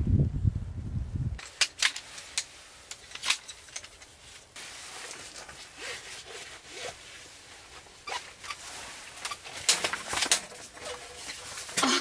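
A lightweight folding camp chair being assembled: scattered clicks and knocks of its aluminium poles and hub, with the rustle of the nylon seat being pulled over the frame. A low rumble fills the first second or so, then cuts off.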